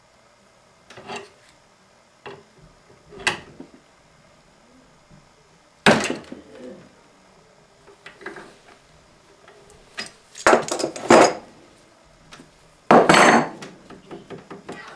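Metal clanks and knocks of an adjustable wrench and a two-jaw gear puller against a lathe's spindle gear and headstock. The knocks come singly, with the loudest about six seconds in, several in quick succession about ten seconds in, and a loud, longer rattle near the end. This is the work that damages a thread on the part.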